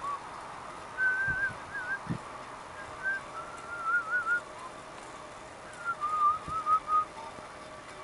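Whistling in short warbling, wavering phrases, loud and close, with gaps between them. A few low thumps come in under the whistling.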